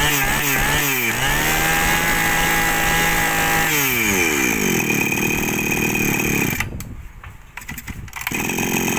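Brush cutter's small petrol engine being revved: a few quick throttle blips at the start, held at high speed, then the throttle is released about four seconds in and it falls to a lower idle. Near the end the sound drops away for about a second and a half, then comes back.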